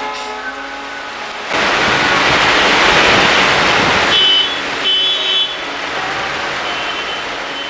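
Soft background music, broken about a second and a half in by a loud, even rushing noise that lasts under three seconds and stops suddenly, followed by a few high steady tones.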